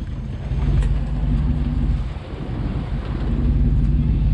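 Boat engine running steadily, a low hum under wind noise on the microphone.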